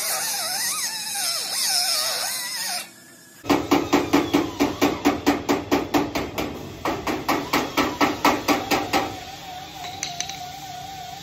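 A hammer rapidly striking a sheet-metal air dam panel, about five blows a second for some five seconds, starting about three seconds in. Each blow rings briefly.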